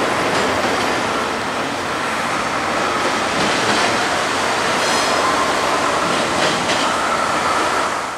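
Double-stack intermodal container train rolling past at close range: the steady rumble of steel wheels on rail, with a brief high-pitched wheel squeal about five seconds in. The sound drops away sharply at the very end.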